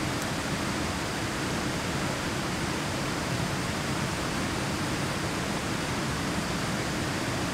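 Steady, even rushing of running water, with no clicks or changes.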